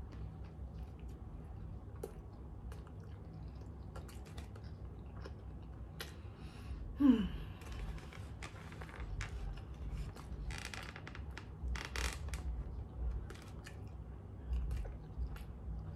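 Close-up chewing and biting of a hot dog in a bun, with paper food trays crinkling as they are handled. A short sound falling in pitch about seven seconds in is the loudest moment.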